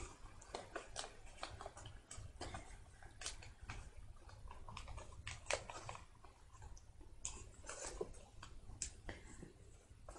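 Faint paper crinkling and rustling in irregular soft crackles as hands fold and press creases into a sheet of origami paper.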